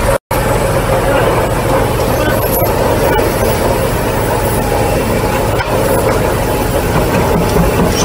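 Heavy diesel construction machinery running steadily and loudly, with a brief gap in the sound just after the start.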